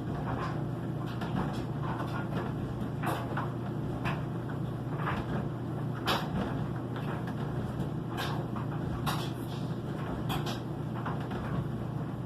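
LG front-load washing machine running: a steady low motor hum under irregular short thuds and swishes, roughly once a second, as the laundry tumbles in the drum.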